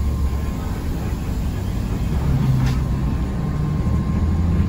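Mercedes-Benz bus engine running under way, heard from the driver's cab as a steady low rumble with road noise. The engine note rises a little about two seconds in.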